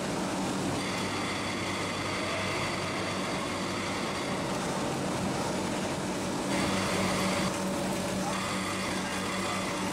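HPR CM5000 VD continuous-motion vertical form-fill-seal packaging machine with an auger filler, running steadily while packing 100 g bags of Turkish coffee: a continuous mechanical hum. A set of high, steady tones comes in and drops out a few times.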